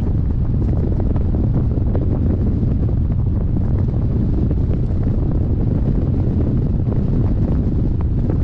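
Steady rush of airflow buffeting the microphone of a hang glider in flight, heaviest in the low end.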